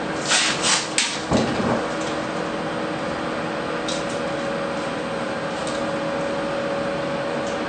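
Two short rasping sounds, then a click and a low knock, from taping the shower door's bottom channel in place on the curb. A steady hum runs underneath.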